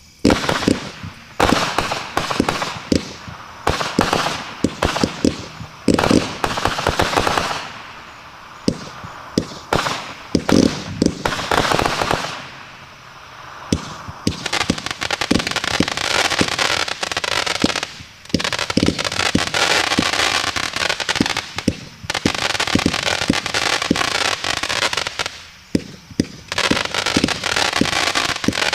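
Multi-shot firework cake firing in rapid succession, a long run of sharp launches and bursting reports. From about halfway through, a dense crackling fills the gaps between the reports.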